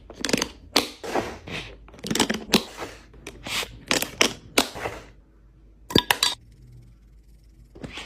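Food packaging and containers handled while restocking a fridge: a quick run of crinkling, tearing and knocking for about five seconds, then a quieter pause broken by a few sharp clicks, with the handling starting up again near the end.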